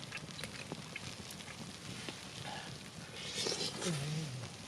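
Campfire crackling softly, with scattered small snaps. A short breathy rush and then a brief low hum near the end.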